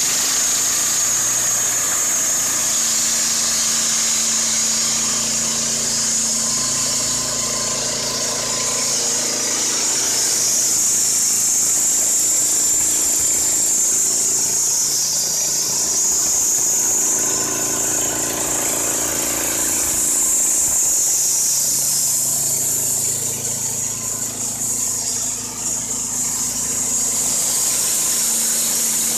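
Wood-Mizer LT15 portable bandsaw mill sawing through a pine log, its 15 hp Kohler Pro-15 petrol engine running steadily under load, with a steady high-pitched whine from the band blade over the engine.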